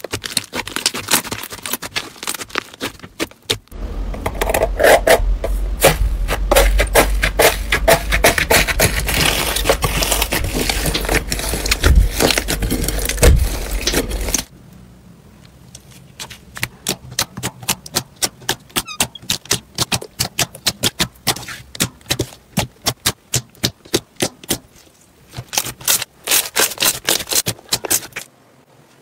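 Hands squishing and kneading slime, with dense sticky crackling and popping clicks. From about four seconds in to about fourteen it is louder, with a low rumble under the clicks; after an abrupt change the clicks are sparser and quieter.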